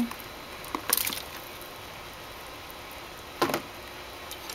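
Fried tofu cubes dropped into a pot of braising liquid, with a soft wet splash about a second in and a brief knock about three and a half seconds in, over a faint steady hiss.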